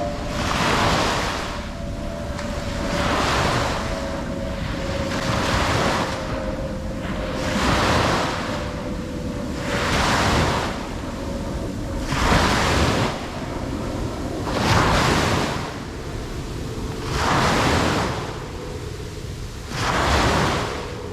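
Ocean waves breaking and washing on the shore, the rushing swelling and fading in regular surges about every two seconds.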